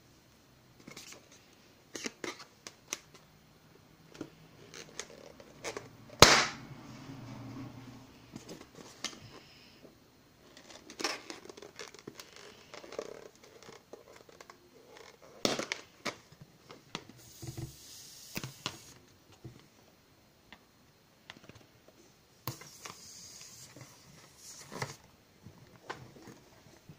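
Rubber balloon being handled on a wooden table: scattered taps, rubbing and crinkling, with one much louder sharp crack about six seconds in and two short stretches of hissing later on.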